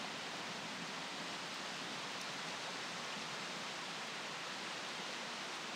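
Steady river ambience: an even, unbroken hiss with no distinct events.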